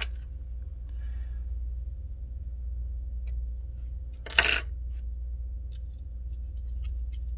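Small plastic and circuit-board parts being handled and pressed together on a bench: scattered faint clicks, with one louder short rasping clatter about four seconds in, over a steady low hum.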